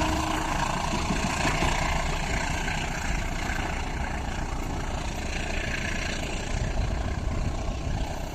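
A locomotive horn cuts off in the first moment, leaving a steady, slowly fading rumble of passing vehicles.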